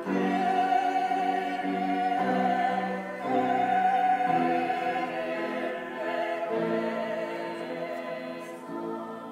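Small choir of cast members singing long held chords in a classical style, with upright piano accompaniment. The chords change every second or so, and the singing grows quieter toward the end.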